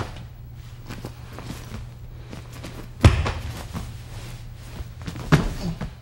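Feet shuffling and bodies thudding on a training mat during jiu-jitsu self-defence drills. Two heavier thuds land about three seconds in and near the end, over a steady low hum from the tape.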